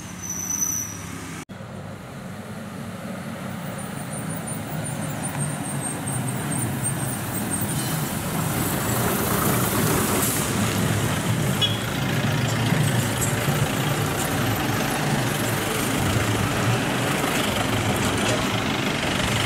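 Diesel goods lorry's engine running as it works around a steep hairpin bend, growing louder over the first several seconds as it comes near, with other vehicles' engines following. A short high-pitched tone sounds in the first second.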